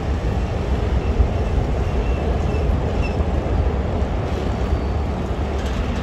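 Motorcycles and cars crossing a railway level crossing: a steady low rumble of road traffic.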